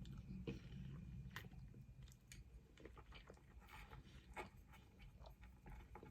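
Faint chewing close to the microphone, with scattered soft mouth clicks over a low steady hum.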